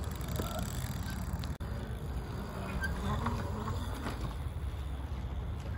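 Bicycles rolling over a dirt track: steady tyre and riding noise with a low rumble.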